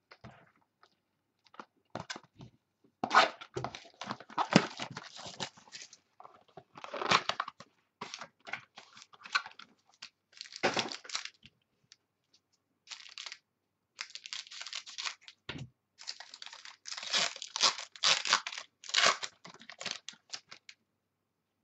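Trading card packs being torn open by hand: irregular bursts of tearing and crinkling packaging, with short pauses between.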